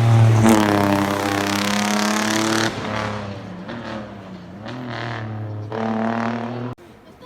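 Race car engine at high revs, accelerating hard past on a hillclimb. The engine note drops suddenly about two and a half seconds in, then climbs again twice as the car pulls away. The sound cuts off abruptly near the end.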